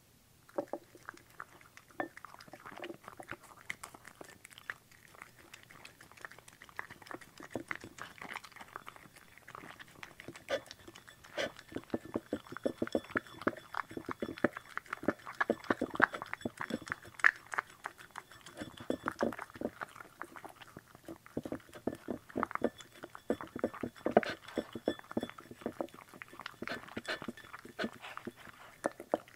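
Bichon Frise eating from a ceramic bowl: a steady run of quick chewing and wet mouth clicks, getting louder and busier about a third of the way through.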